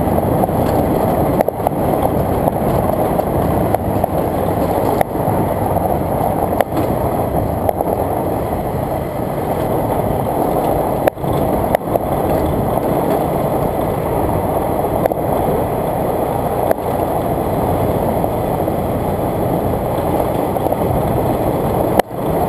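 Motorcycle riding at steady speed on a loose gravel road, heard from a camera on the bike: a constant rumble of engine, tyres on gravel and wind rushing over the microphone, with brief dips about halfway through and near the end.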